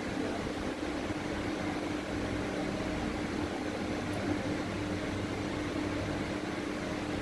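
Steady machine hum with a constant low tone, running evenly in the room background.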